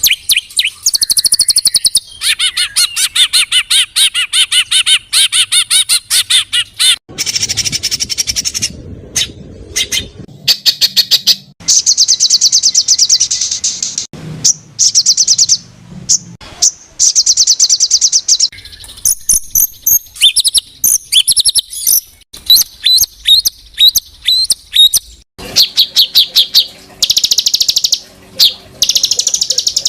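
Recorded songbird calls edited together as 'masteran' training material for pet songbirds: bursts of fast, high trills and rough chattering phrases, each a second or two long, separated by short pauses.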